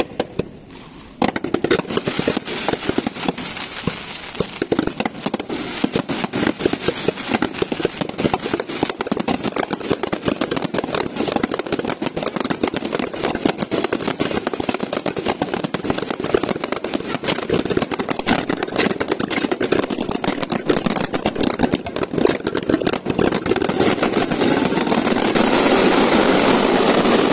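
Fireworks going off in dense, rapid crackling and popping, almost without a break after about a second and getting louder toward the end.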